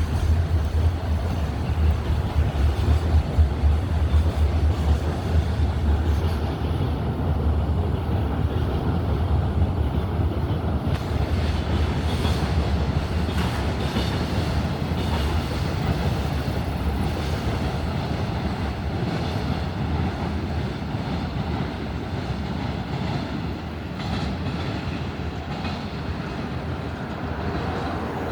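Freight train hauled by a JR Freight EF210 electric locomotive passing at slow speed: a steady low rumble of wheels on rail with faint repeated clicks, easing off slowly towards the end.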